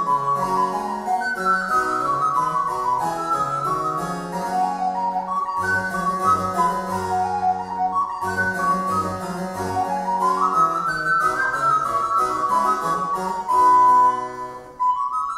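Wooden recorder playing a Baroque sonata melody in A minor with harpsichord accompaniment, the notes moving up and down over a bass line. The music breaks off briefly near the end.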